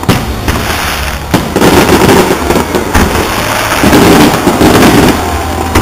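Aerial fireworks shells bursting, loud: sharp bangs near the start and about a second and a half in, then dense, rapid crackling from glittering shells.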